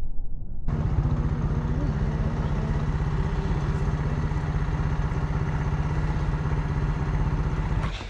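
Small motorcycle engine running steadily at an even speed. It starts abruptly less than a second in and cuts off just before the end.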